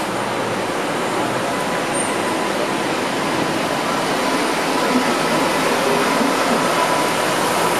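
Red New Orleans streetcar rolling past on its rails, a steady wash of rolling and street traffic noise with a faint steady whine.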